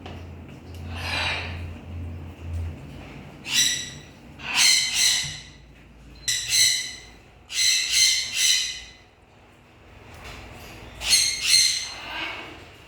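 Parrot squawking: about ten loud, harsh calls, each well under a second, coming in short clusters of two or three.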